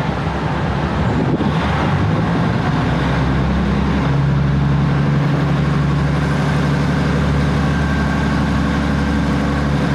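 Diesel engine of a Japanese-built THN-type railcar working as the train pulls away, heard from inside the passenger car. It is a steady, loud drone, and the engine note shifts about four seconds in.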